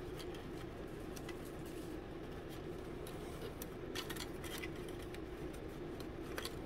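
Faint clicks and ticks of laser-cut basswood kit parts being worked free of their sheet with a hobby knife, the clearest two about four seconds in, over a steady low hum.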